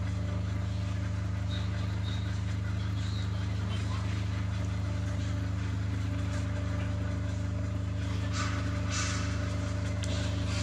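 Steady low drone of a running engine, even and unchanging, with a short hiss about eight and a half seconds in.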